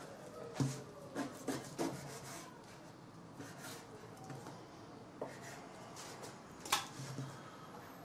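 Knife cutting through a slab of raw pork belly on a cutting board: the blade scraping and sawing, with a few sharp knocks of the knife against the board, the loudest near the end.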